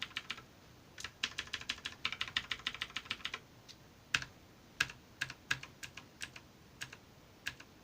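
Keys clicking on a Redragon K551 Vara RGB mechanical keyboard: a quick run of presses, about eight a second, for a couple of seconds, then single presses spaced out.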